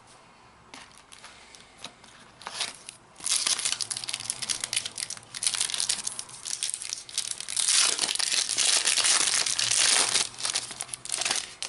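Plastic wrapper of a Topps Mega Match Attax trading-card pack being crinkled and torn open by hand. A few light ticks at first, then steady crackling starts about three seconds in and is loudest near the end.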